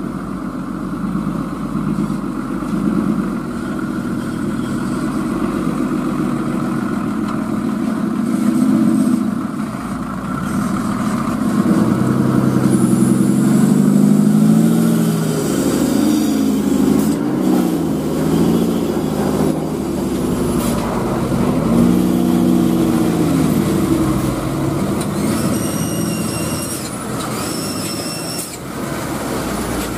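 A Hino diesel dump truck's engine runs as the truck pulls slowly past, its pitch rising and falling several times as it is revved. Near the end come two short high-pitched squeals.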